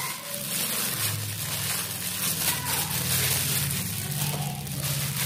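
Plastic-gloved hand massaging marinade into raw chicken leg quarters: crinkling plastic and wet rubbing with many small crackles, over a faint steady low hum.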